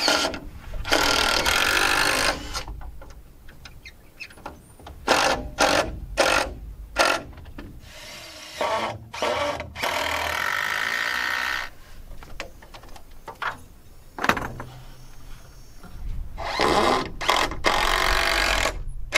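Power drill driving screws into a wooden roof truss, in a series of bursts: a few long runs and a cluster of short stop-start pulses as screws are seated.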